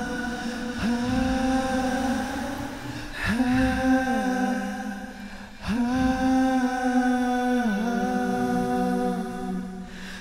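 Solo vocal track of long held sung notes, played through a TAL Reverb 3 plugin reverb. A held note carries in, then new notes start about a second, three seconds and five and a half seconds in, two of them stepping down in pitch partway through.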